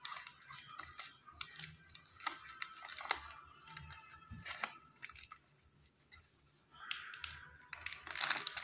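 Thin clear plastic crinkling and tearing in irregular crackles as a cut plastic-bottle graft cover and its plastic tie are pulled loose by hand. The crackling eases for a moment a little past the middle and gets busier near the end.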